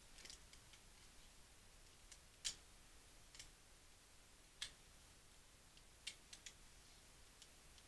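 Near silence broken by scattered faint, sharp clicks and ticks from hands handling photo prints, with a clearer click about two and a half seconds in, another a couple of seconds later, and a quick run of three around six seconds in.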